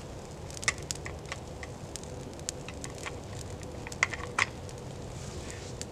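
Small twig-teepee campfire on birch bark and fatwood crackling as it catches, with scattered sharp pops, the loudest a cluster about four seconds in.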